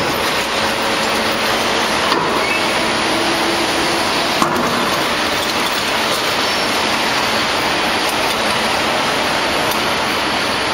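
Steady industrial machinery noise from a steel slit-coil packing line, with two sharp clicks about two and four and a half seconds in.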